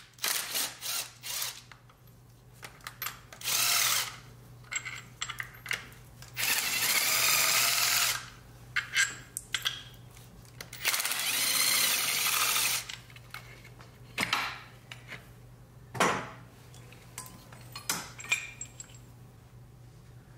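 Power drill with a socket on an extension spinning out engine-mount bolts that have already been broken loose, in several runs of up to about a second and a half. Short metallic clicks and a knock come between the runs as the bolts and socket are handled.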